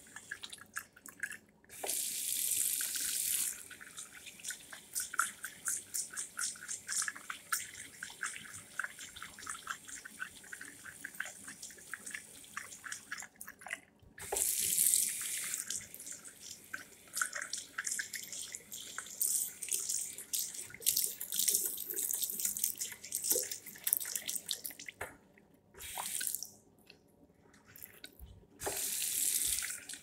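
Water running from a Hyco push-button tap into a small ceramic sink and splashing over hands being washed. The flow stops briefly about halfway through and again near the end, then starts once more, as a timed push-button tap does when it shuts off and is pressed again.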